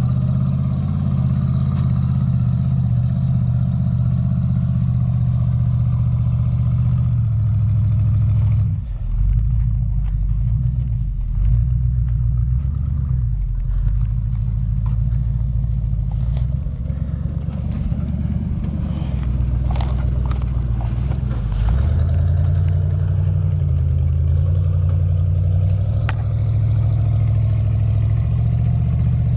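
The 6x6 Badger off-road truck's engine running under load as it climbs a steep sand slope. Its pitch steps up and down several times, with a brief drop about nine seconds in.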